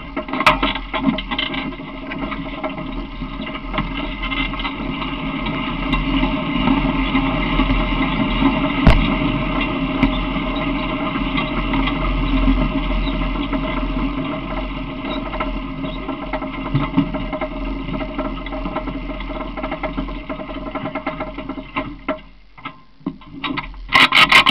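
Steady rumble and rattle of a small open cart rolling along a path, with a few sharp knocks near the end.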